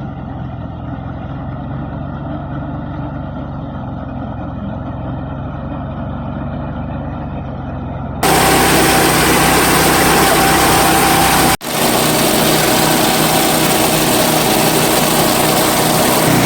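Rice harvester's engine running steadily. About eight seconds in the sound abruptly turns louder and fuller, and a few seconds later it drops out for an instant before running on.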